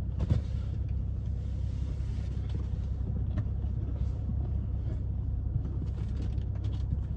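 Steady low drone of a BMW 540i's turbocharged B58 inline-six and road noise, heard from inside the cabin while driving.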